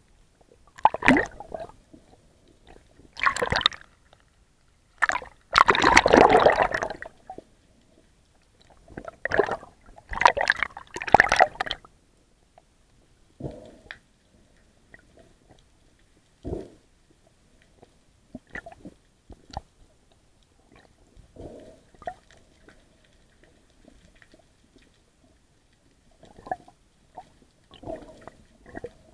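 Water sloshing and gurgling underwater in irregular bursts, the loudest and longest in the first twelve seconds, then fainter and sparser.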